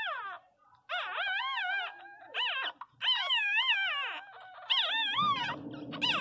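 Newborn pinscher puppies crying: high, warbling squeals that rise and fall, in about six short bouts with brief gaps between them.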